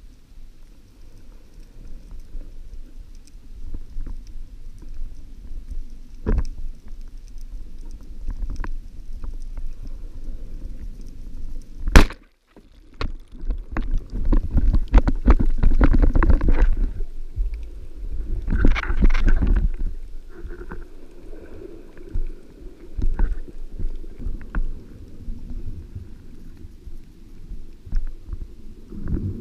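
Underwater water noise heard through a camera housing: a low rumbling with a single sharp click about twelve seconds in, then two stretches of louder turbulent rumbling and bubbling.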